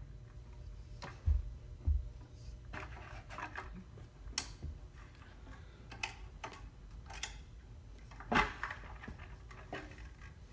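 Scattered clicks and soft knocks at an uneven pace over a low hum. There are two dull thumps in the first two seconds and a louder knock about eight seconds in.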